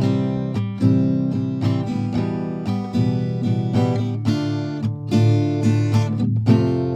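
Background music: an acoustic guitar strumming chords, cutting in suddenly.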